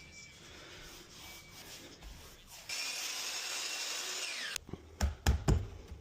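A power tool runs for about two seconds and winds down with a falling whine, followed near the end by three or four sharp knocks during carpentry work on barn wood.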